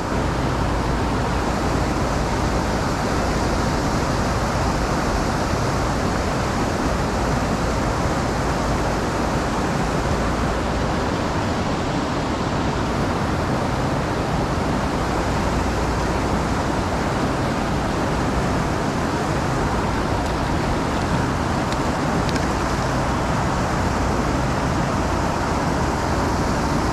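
Creek water flowing steadily in the current, a constant even rush with no breaks.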